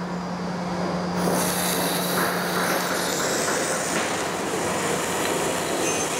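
Reid surface grinder running with its wheel on a hardened steel plate. About a second in, a steady hiss of the combined air-and-coolant mist comes on. Near the end, sparks at the wheel show it is cutting.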